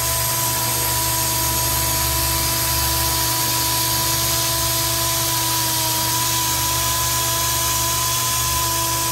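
Milwaukee M18 cordless drill running steadily at one speed, spinning a headless wood screw that cuts the grout out of a floor-tile joint.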